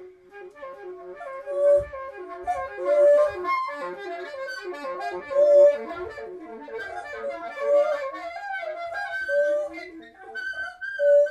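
Improvised jazz: an alto saxophone and a wordless female voice weave rapid, shifting melodic lines together, with a few faint low thumps underneath.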